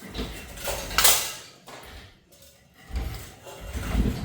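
Irregular metal clunks and scraping from hands-on work on parts, with one sharp knock about a second in and heavier thuds near the end.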